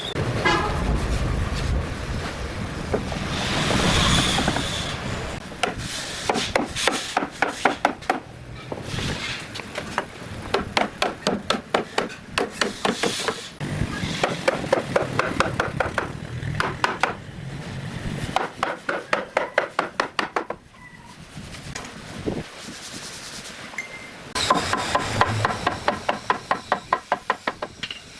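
Repeated hammering on solid wood in quick runs of several blows a second, with scraping and rubbing between the runs and a brief lull about two-thirds of the way through.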